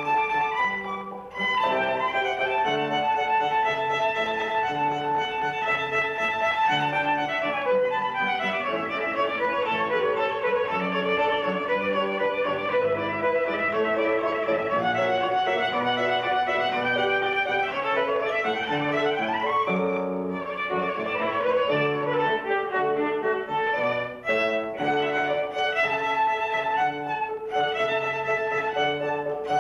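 Violin music, a melody with fast runs up and down the scale partway through.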